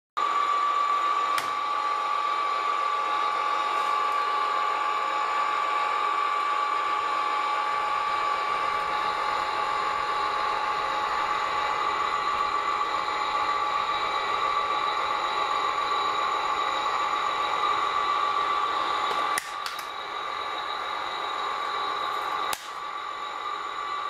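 Electric drive motors and gearboxes of an RC tracked dumper whining steadily as it crawls up a trailer ramp, with a few light clicks; the whine drops in level twice near the end.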